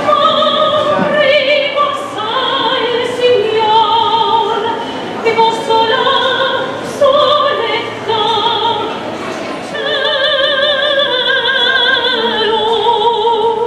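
A woman singing solo into a handheld microphone, amplified, in an operatic style. She holds long notes with a wide vibrato, the longest held note coming near the end.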